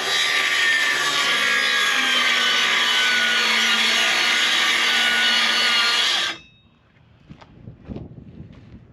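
Electric power saw cutting through a sheet of plywood, running steadily under load for about six seconds before it cuts off suddenly. A few light knocks from handling the wood follow.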